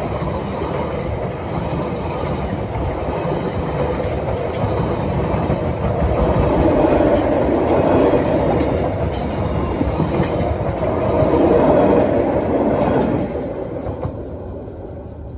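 Train of passenger coaches rolling past close by, steel wheels running on the rails with scattered clicks over the rail joints and a thin high squeal in the first few seconds. The noise dies away about thirteen seconds in as the last coach passes.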